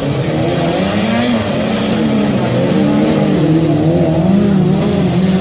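Autocross race cars of the Standard 1800 class running hard on a dirt track, their engine notes repeatedly rising and falling as they rev and lift off.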